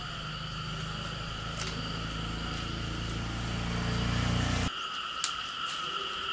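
Insects chirring steadily in two high, level tones. Under them a low engine-like hum grows louder, then cuts off suddenly about three-quarters of the way through, leaving the insects and a single click.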